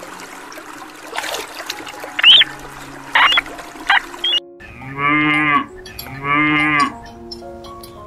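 Two long cow moos, each about a second long, following a sudden cut about halfway in, over steady background music. Before the cut come a few short, high-pitched calls.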